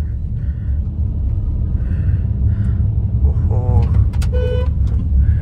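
Steady low rumble of a small car's engine and tyres, heard from inside the cabin while driving, with a brief pitched beep about four seconds in.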